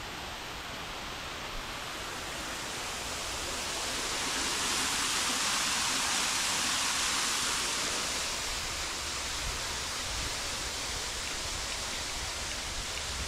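Courtyard fountain water splashing steadily; it grows louder about a third of the way in and eases off again after the middle.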